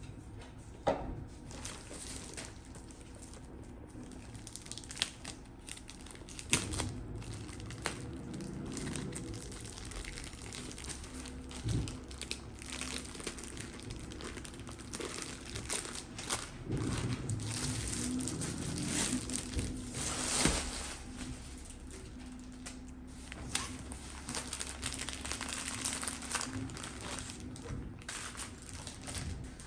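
Packaging crinkling and rustling as a rolled diamond painting canvas is unwrapped by hand, with irregular handling sounds and a few sharp clicks, busiest past the middle.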